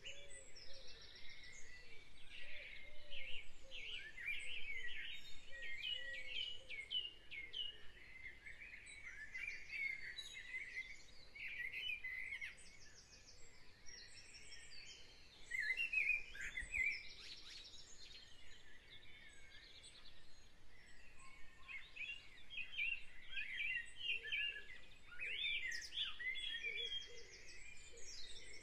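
Birdsong: several birds chirping and trilling at once, some with rapid runs of repeated notes.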